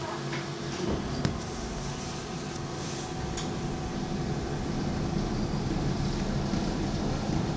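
Light-rail tram car running, heard from inside the car: a steady rumble with a low hum, growing slowly louder, and a single click about a second in.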